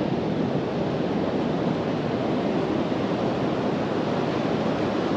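Steady rush of ocean surf breaking on the beach, an even noise with no distinct strokes.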